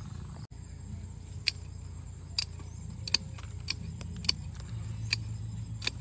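Hand pruning shears snipping twigs and small branches off a young durian tree: a series of sharp snips, about one a second, over a steady low rumble.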